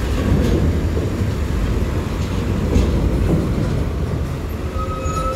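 Heavy rumble of a medium-size coach's engine and tyres as it drives over a ferry's steel loading ramp. A steady high tone comes in near the end.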